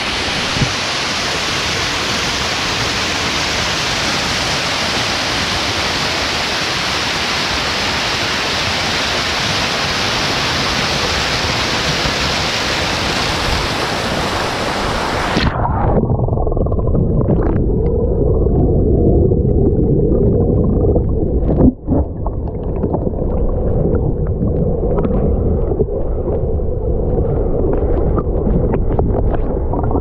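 Small waterfall pouring over rock, a steady loud rush of water. About halfway through the microphone goes under the water, and the sound turns abruptly to a muffled low rumble with faint scattered clicks.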